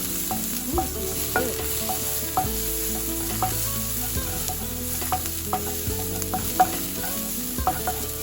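Garlic and ginger sizzling in hot oil in a wok, stirred with a utensil that knocks and scrapes against the pan in frequent short clicks.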